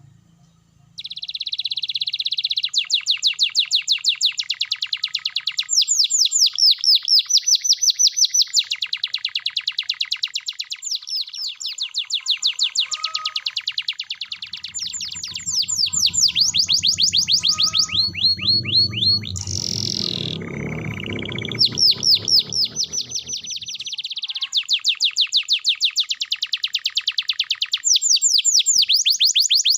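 Domestic canary in full song, running through long phrases of rapid trills and rolling repeated notes with short pauses between them. A low rumble sits under the song for several seconds in the middle.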